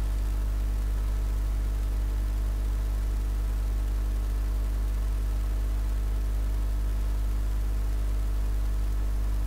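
Steady low electrical mains hum with a stack of evenly spaced overtones, unchanging in pitch and loudness: the background hum of the recording chain, here heard with nothing else over it.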